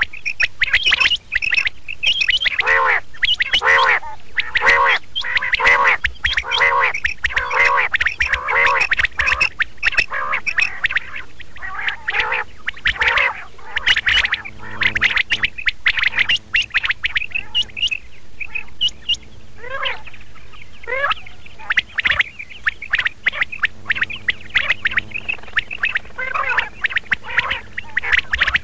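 Quail calling over and over. A regular run of repeated call notes comes about one a second at first, then several birds call over one another.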